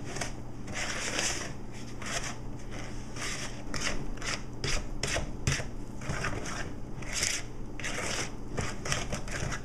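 Wooden spoon scraping and stirring a thick peanut butter, margarine and sugar mixture against the sides of a ceramic bowl while creaming it, a steady run of scraping strokes about two a second.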